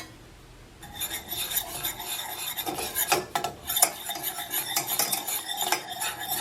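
A utensil stirring cheese sauce in a pot on the stove, scraping and clinking irregularly against the pot, starting about a second in.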